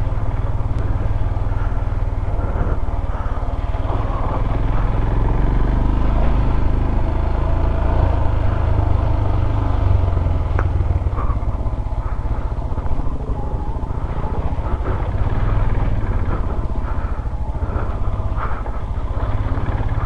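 Motorcycle engine running steadily at low speed while riding a rough off-road trail, with a few short knocks along the way.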